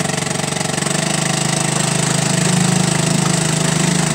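Honda 2.4 air-cooled four-stroke outboard running warmed up, with a small amount of throttle applied so the engine note grows a little louder about halfway through. At this throttle its centrifugal clutch engages and the propeller starts to turn.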